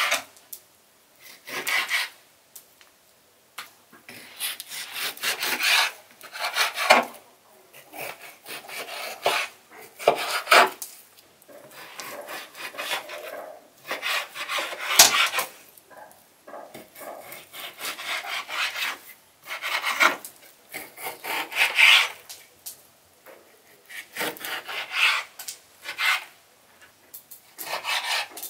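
A kitchen knife slicing raw beef on a wooden cutting board: irregular sawing strokes about a second apart, with the blade now and then knocking on the board, once sharply about halfway through.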